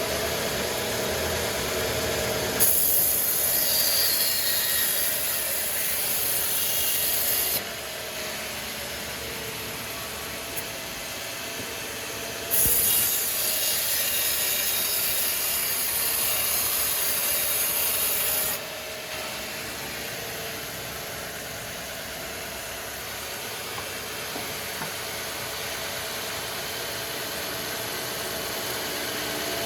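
Sawmill saw running steadily and cutting through timber, with two loud stretches of high-pitched hissing, each about five seconds, that start and stop abruptly as the blade passes through the wood.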